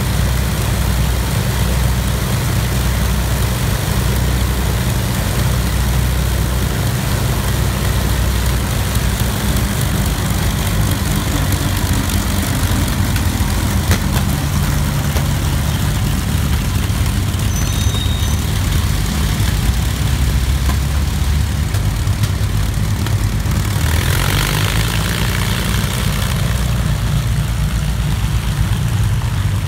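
Avro Lancaster bomber's four Rolls-Royce Merlin V12 engines running as it taxis, a deep steady drone with propeller beat. The pitch shifts slightly partway through, and a rush of noise sweeps in about 24 seconds in.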